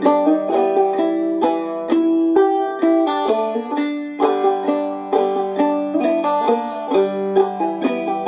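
Five-string banjo in standard G tuning (gDGBD) played clawhammer style: a melody in the key of G picked out as a steady run of quick down-struck notes and brushed strums.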